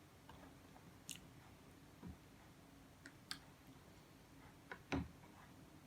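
Faint close-up eating sounds: a few soft mouth clicks and taps, with a dull thump about two seconds in and a louder one about five seconds in.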